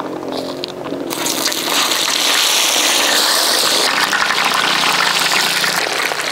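French fries poured into a large wok of hot oil: a loud hissing sizzle starts about a second in and, after about three seconds, settles into steady crackling as the oil bubbles around them.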